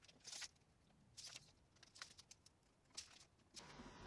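Near silence broken by a few faint, separate clicks and taps from a steel tape measure being handled.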